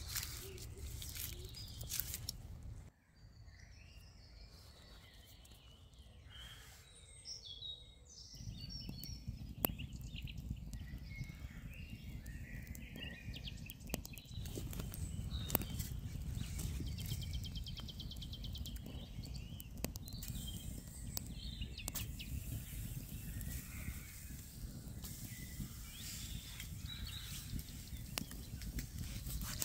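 Forest ambience: small birds chirping and calling, with a steady low rumble that comes in about a quarter of the way through. Scattered clicks and rustles sit in the first few seconds.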